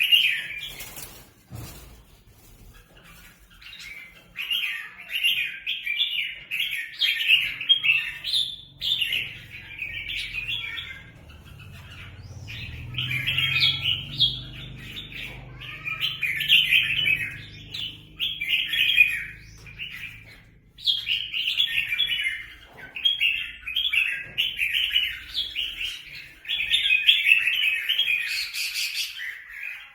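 Red-whiskered bulbuls calling in rapid, chattering bursts of song, phrase after phrase with short gaps, as several birds squabble.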